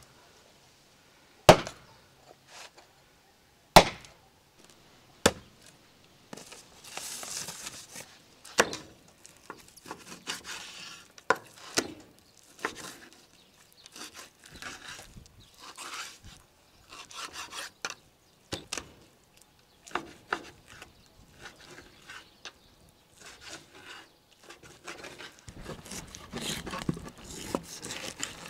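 An axe chopping through a rack of beef ribs on a wooden block: two heavy strikes and a lighter one in the first few seconds. After that, a chef's knife cutting between the ribs on a wooden cutting board, with short cuts, scrapes and light taps.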